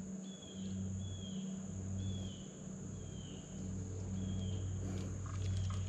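Insects droning steadily at a high pitch, with a short falling chirp repeated about once a second and a low hum underneath that comes and goes.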